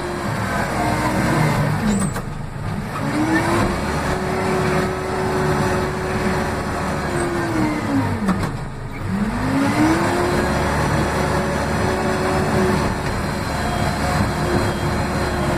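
Case 580M backhoe loader's diesel engine running at high revs, heard from inside the cab. Its revs sag sharply and climb back up twice, about two and a half seconds in and again near nine seconds.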